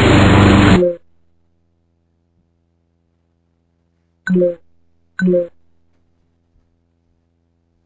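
Electronic sound effects: a loud noisy buzz that cuts off about a second in, then two short low bleeps about a second apart, over a faint steady low hum.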